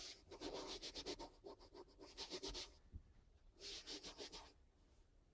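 A hand rubbing over the carpet covering of a subwoofer box: a run of quick scratchy strokes lasting nearly three seconds, then a second, shorter burst about a second later.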